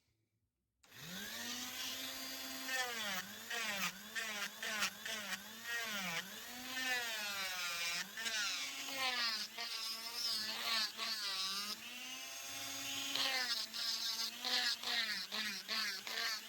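Small electric power tool switched on about a second in and worked against wood, its motor whine dipping in pitch again and again as it is pressed into the work, with scratchy grinding contact noise.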